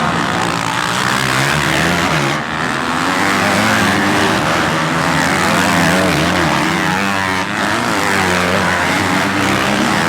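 Dirt bike engine revving up and down under changing throttle, with a rushing noise over it. The engine dips briefly twice, at about two and a half seconds and about seven and a half seconds in.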